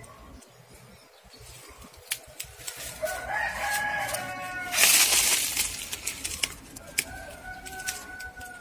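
A rooster crowing once, a drawn-out pitched call lasting about two seconds, followed by a brief burst of noise, the loudest moment.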